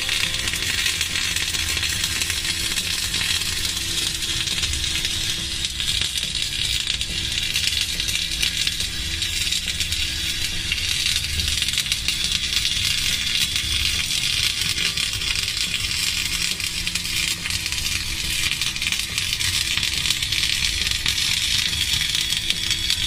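Flux-cored arc welding with rutile flux-cored wire: the arc crackles and spatters in an unbroken, steady sizzle as a cap pass is run on a horizontal (2G) weld.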